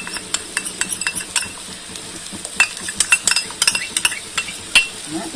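Metal spoon stirring in a pot of tamarind gravy, giving irregular sharp clinks and scrapes against the vessel over a faint steady hiss from the cooking pot.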